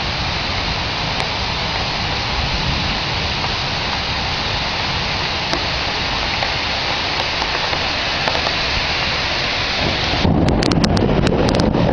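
Heavy rain pouring steadily in a thunderstorm, with thunder rumbling low underneath. About ten seconds in the rumble swells louder and a run of sharp crackling clicks comes in.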